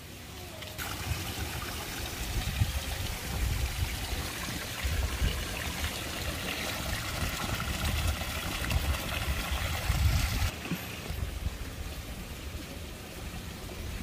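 Water pouring from duck-statue spouts and a small fountain jet into a pond, a steady splashing that sets in about a second in and fades near the ten-second mark. Low rumbles run underneath.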